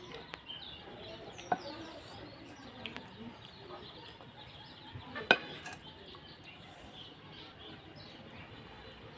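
Small birds chirping in short rapid calls in the background, with two sharp clinks of a plate or dish, about a second and a half in and more loudly about five seconds in.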